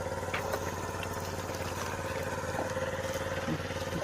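A small engine running steadily, a constant drone with a rapid even pulse and a few faint clicks over it.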